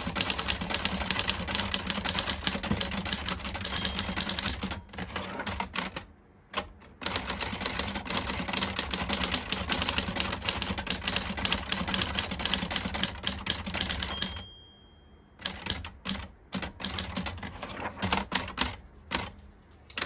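Halda manual portable typewriter being typed on fast: a rapid, dense clatter of type-bars striking the platen, with two short pauses, about six seconds in and about fifteen seconds in.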